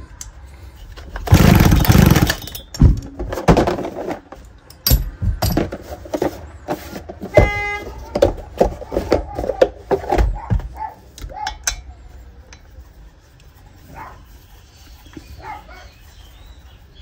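Hands handling tools, engine parts and a hard plastic tool case on a rubber workshop mat: scattered clicks, knocks and rattles. There is a loud scraping rustle about a second and a half in and a short squeak about seven and a half seconds in.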